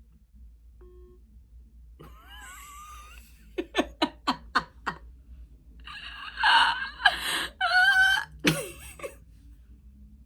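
Voice-like prank noises over a phone call: a short wavering squeal, then a quick run of about six short laugh-like bursts, then louder drawn-out cries.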